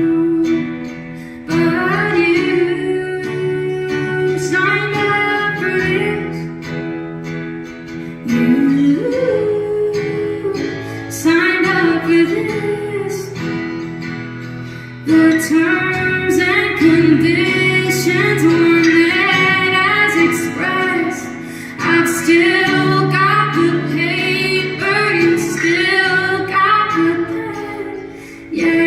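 A woman singing with instrumental accompaniment in a live song performance, phrase by phrase with short dips between lines.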